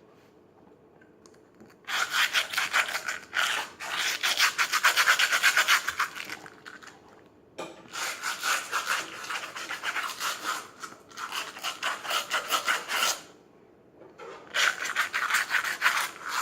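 Brush scrubbing a Converse sneaker with shoe cleaner: quick, even back-and-forth strokes in three bouts, with two short pauses between them.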